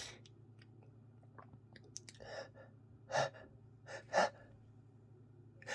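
A man with a congested head cold taking short, sharp gasping breaths as a sneeze builds: several quick hitching inhalations about a second apart, the loudest about three and four seconds in.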